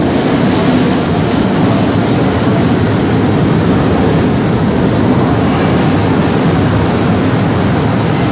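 Steady, loud rumble of a metro train running, with no change in pace or level.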